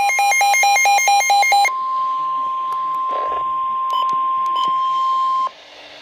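Weather radio alert: a rapidly alternating two-pitch beeping for the first couple of seconds, then the steady single-tone NOAA Weather Radio warning alarm tone with a couple of faint clicks, which cuts off suddenly about a second before the end and leaves a faint hiss. The tone signals that a warning, here a severe thunderstorm warning, is about to be read.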